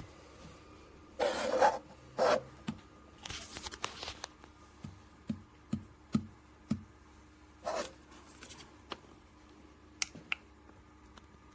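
Handling noises in a small room: short rustling or scraping bursts, then a run of about five soft knocks, and two sharp clicks near the end.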